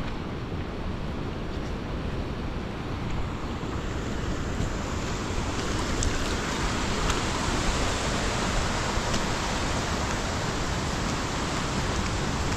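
Wind blowing over the microphone: a steady rushing noise with low buffeting, a little stronger in the second half.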